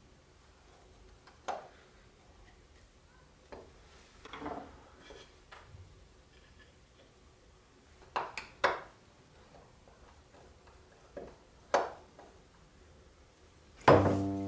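Light metallic clicks and taps of small brass screws and a screwdriver on a wooden spirit level and workbench, as the level's brass end plates are screwed back on: about ten scattered short clicks. A louder knock on the bench near the end.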